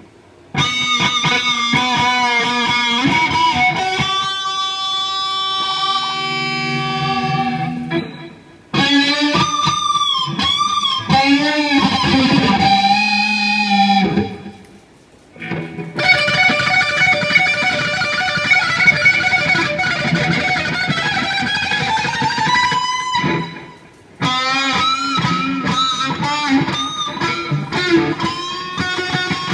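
Electric guitar played through a NUX Mighty 15SE amplifier with effects, in sustained lead phrases with bent and vibrato notes. It pauses briefly between phrases three times.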